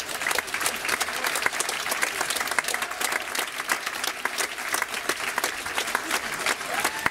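Theatre audience applauding: a dense, steady clatter of many hands clapping.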